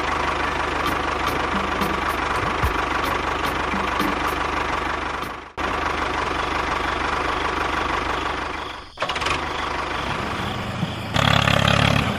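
An engine running steadily with a fast, even beat. It cuts out briefly twice, about halfway through and again about three quarters of the way in.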